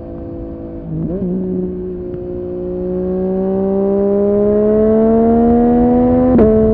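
Yamaha MT-09's three-cylinder engine through a Dominator HP8 exhaust muffler under way. There is a brief dip in pitch about a second in, then the revs climb steadily under acceleration until the note drops sharply with an upshift near the end.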